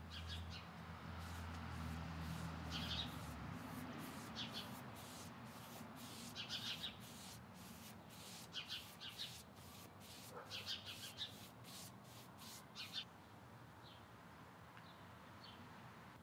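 Foam brush dabbing and wiping stain onto a wooden cabinet top: a run of short brush strokes with short high squeaks that stop about three seconds before the end. A low hum lies under the first few seconds.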